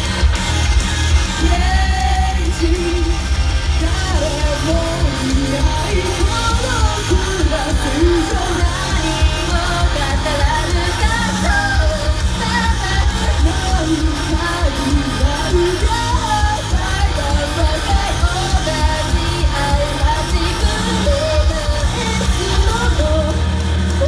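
Live J-pop/rock idol song: two women singing into microphones over loud music with a fast, steady beat, filling a live-house hall.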